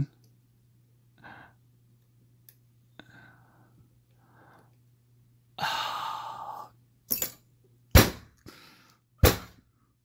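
A man lets out a long, breathy sigh a little past halfway, with softer breaths before it. Three short, sharp sounds follow in the last few seconds, the last two the loudest. A faint steady low hum runs underneath.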